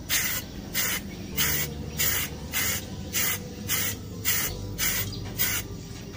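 Aerosol spray-paint can of grey primer fired through a clip-on plastic trigger handle: about ten short hisses, a little under two a second.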